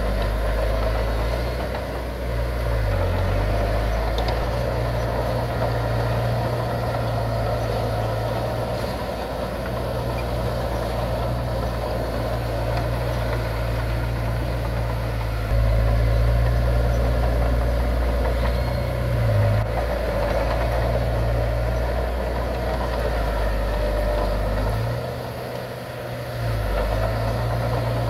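Diesel engine of heavy earthmoving machinery running with a steady low drone. It grows louder about halfway through and drops away briefly near the end.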